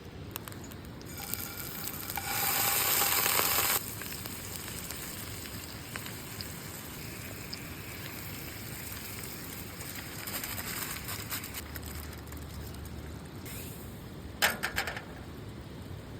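Potatoes and mozzarella frying in a pan, with a loud burst of sizzling hiss in the first few seconds that cuts off suddenly, then a quieter steady sizzle with some crackling. A few sharp clicks come near the end.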